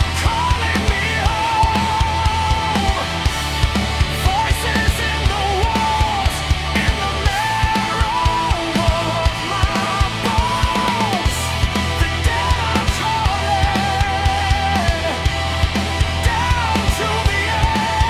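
Instrumental rock music with a steady drum beat and bass under a lead melody that wavers with heavy vibrato.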